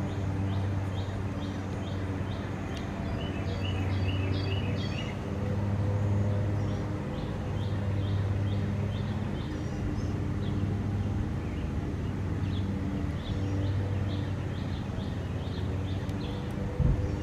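High chirps from small birds, repeated a few times a second, over a steady low engine-like hum. A short thump comes near the end.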